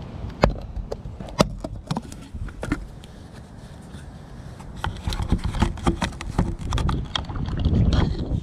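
Sharp plastic clicks and knocks as a camper van's electric hook-up inlet flap is opened and a blue mains hook-up plug is handled and pushed in, busier in the second half, over a low rumble of wind on the microphone.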